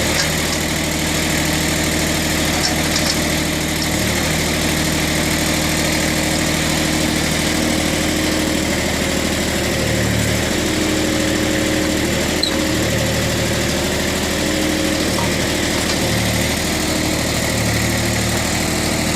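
Mitsubishi MTE2000 compact tractor's diesel engine running steadily. Its tone shifts briefly several times in the second half as the backhoe hydraulics take load while digging.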